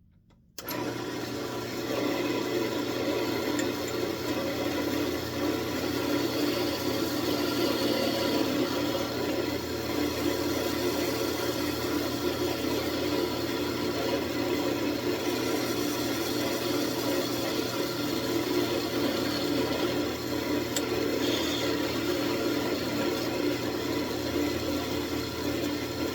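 Wood lathe starting up about half a second in and running steadily, a constant motor hum with the whir of the spinning workpiece, while a parting tool cuts the ornament off.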